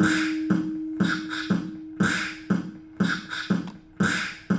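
A looped beat built from recorded vocal percussion samples, with mouth-made hits about twice a second in an even rhythm. A held low note sounds under the first part and slowly fades.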